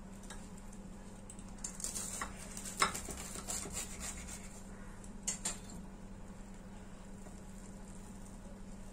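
Kitchen knife sawing through a toasted sandwich and scraping and clicking against a glass plate: a run of short scrapes and taps in the first few seconds, two more at about five and a half seconds, over a steady low hum.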